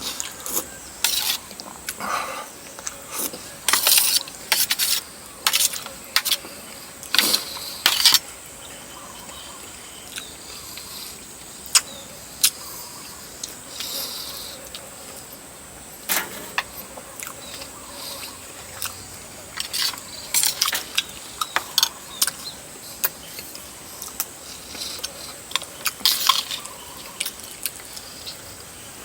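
Close-up eating sounds from a bowl of rice noodles in coconut curry with chicken feet: irregular wet clicks and smacks of chewing and slurping, with sharp clinks of a utensil against the dish. They come in clusters, busiest in the first few seconds and again near the end, thinner in between.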